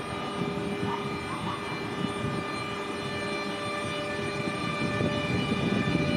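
BLS Cargo Re 485 and Re 465 electric locomotives hauling a freight train at low speed: a steady electric traction whine of several held tones over the rumble of the wheels, the rumble growing louder near the end as the train draws closer.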